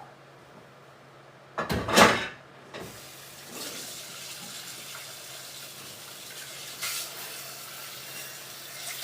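A loud clatter about two seconds in, then water running steadily from a kitchen tap into the sink.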